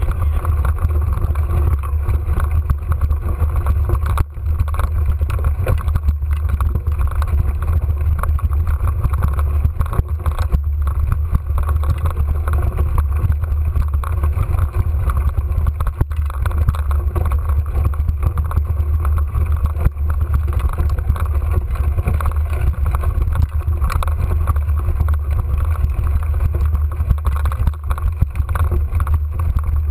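Mountain bike riding a dirt single-track trail: a steady low rumble with frequent small knocks and rattles from the bike going over the ground.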